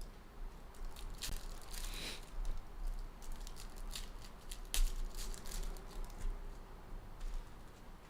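Trading card pack wrappers being torn open and crinkled, with irregular sharp crackles and rustles as the packs are opened.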